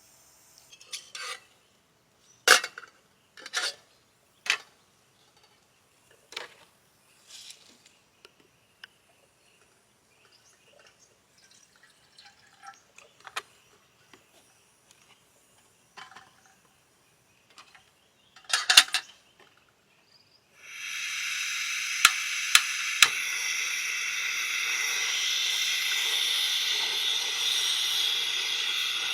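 Pots, dishes and utensils clinking and knocking, scattered strokes spaced a second or so apart. About two-thirds of the way in, a steady, louder hiss starts suddenly and holds, with a few clicks over it.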